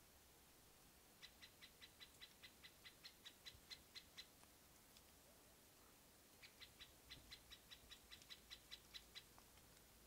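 A bird calling faintly in two rapid runs of short, clear, evenly repeated notes, about six a second. Each run lasts around three seconds and grows a little louder, with a pause of about two seconds between them.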